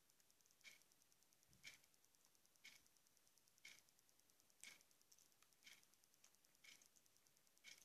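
Near silence with a clock ticking faintly and evenly, once a second.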